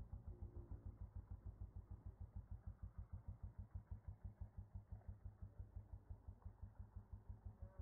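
A motorcycle engine idling, faint, with a steady, fast beat of low pulses.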